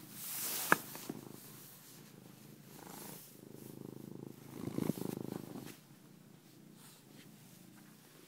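Domestic cat purring close to the microphone, a steady low rumble that swells louder about four to five seconds in. A rustle and a sharp click of handling come about a second in.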